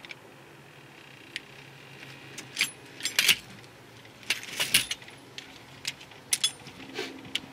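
Metal hand tools and brake caliper hardware clinking and rattling as they are handled, including a ratchet wrench: irregular sharp clinks, thickest about three seconds in and again between four and five seconds.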